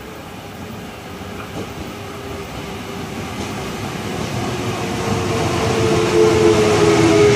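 Korail Class 8200 electric locomotive hauling a Mugunghwa passenger train as it approaches along the platform. The rumble of the train grows steadily louder, and a steady whine joins in about five seconds in.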